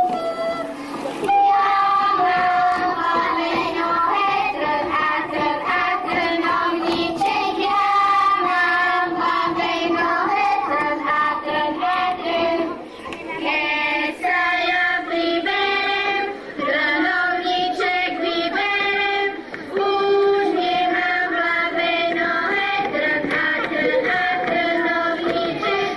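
A group of children singing a folk song together as one melody, with short breaks between phrases.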